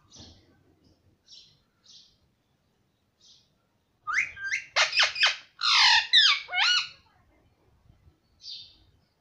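Indian ringneck parakeet calling: a few soft, scratchy chirps, then about four seconds in a loud run of quick squawks and warbling, gliding chatter lasting about three seconds, and one more soft chirp near the end.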